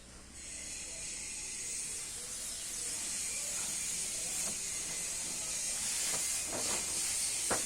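Steady hiss of compressed air, growing slightly louder after the first half second, with a few short sharper sounds near the end.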